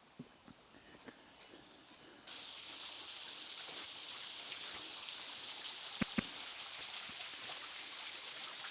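Small woodland waterfall: a steady rushing hiss of falling water that cuts in suddenly about two seconds in, after a faint quiet stretch with a few soft ticks. Two sharp ticks sound over the water about six seconds in.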